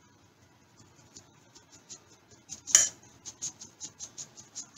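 Fine metal mesh sieve being tapped by hand to sift flour into a glass bowl: a rapid run of light metallic taps, about five a second, starting about halfway through, with one louder knock just before it.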